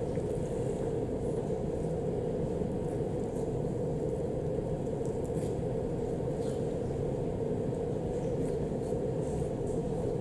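Steady low hum of room noise, with a few faint light ticks from handling about halfway through and later on.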